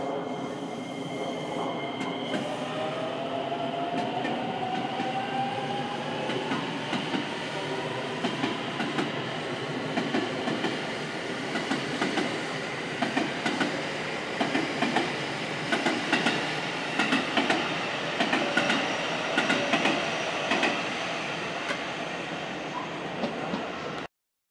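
JR West electric commuter train moving past: its traction motors whine and rise steadily in pitch as it picks up speed, then its wheels clatter in quick groups over the rail joints, the clatter easing off near the end before the sound cuts off suddenly.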